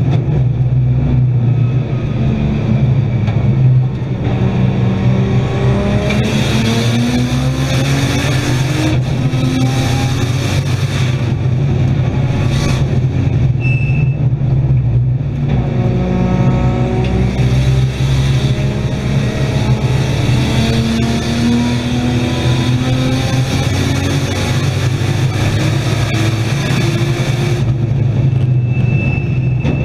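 Nissan Skyline R32's RB straight-six race engine heard from inside the cabin, pulling hard up through the gears. Its pitch climbs and drops back at each upshift, several times, over a steady low drone of road and cabin noise.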